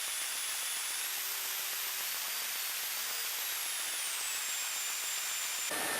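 Cessna 172 Skyhawk cabin noise in flight: a steady hiss, with a faint high whine that rises and then falls in pitch in the middle.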